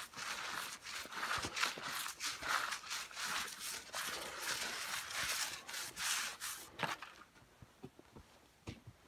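Dry straw rustling and crackling as it is handled close up, stopping about seven seconds in; a few faint knocks follow.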